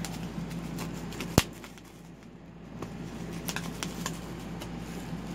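Bubble wrap popping as a dog bites into the sheet: one loud pop about a second and a half in, then several fainter pops.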